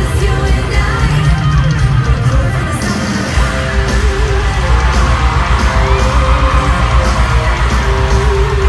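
Loud live pop-rock concert music from a big arena sound system, heard from the crowd: a woman singing over electric guitar and drums, with fans yelling. The heavy bass comes in about three and a half seconds in.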